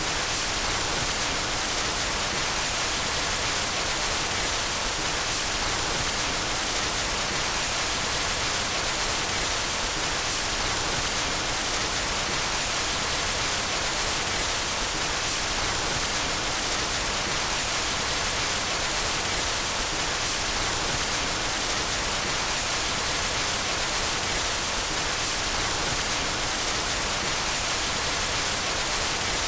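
Steady white noise: an even hiss that holds at one level without change.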